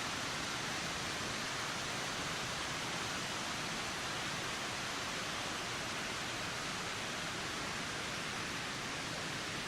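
Steady wind, an even hiss with no gusts, breaks or changes in level.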